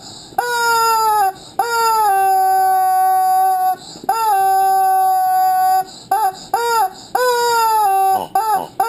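Rubber screaming chicken toy squeezed over and over, letting out loud squawks that dip in pitch at the start and then hold. First come three long squawks of one to two seconds each, then a run of short, quick ones near the end.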